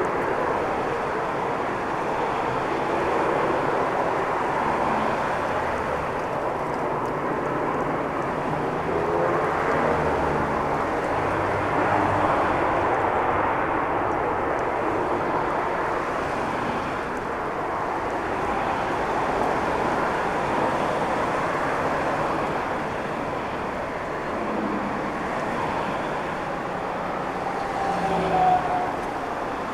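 Jet airliner engines during takeoff: a steady rush of engine noise with faint whining tones that drift in pitch.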